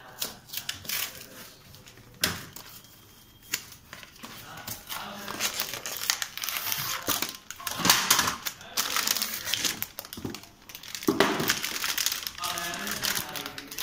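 Cardboard toner carton being opened and the copier toner cartridge pulled out of its plastic bag: a few knocks and cardboard scrapes, then plastic crinkling from about five seconds in.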